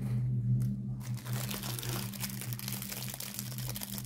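Thin clear plastic wrapping crinkling as it is pulled and peeled off a packaged item by hand. The crinkling thickens about a second in and carries on continuously.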